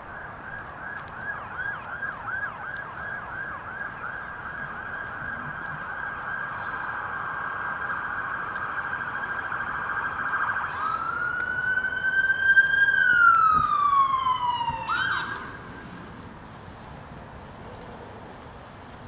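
Emergency vehicle siren sounding: a fast up-and-down yelp of about three cycles a second, changing about eleven seconds in to one slow rise and fall in pitch. It is loudest in that slow part and stops about fifteen seconds in.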